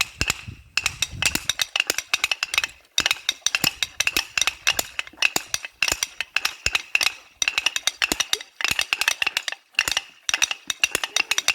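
Several wooden Good Friday clappers (Karfreitagsklappern) rattling fast together, in bursts broken by short pauses every second or two. The clapping stands in for the church bells, which stay silent from Maundy Thursday to Easter.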